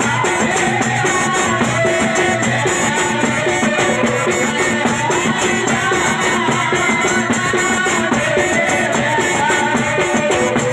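Loud music with a steady, driving drum beat and rattling shaker percussion under a wavering melody line.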